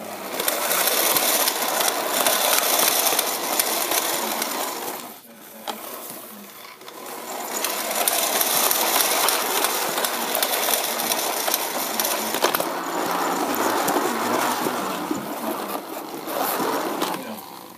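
A small motorised toy vehicle whirring and rattling as it rolls across a hard tile floor, heard from on board. The noise drops away for a couple of seconds about five seconds in, then picks up again.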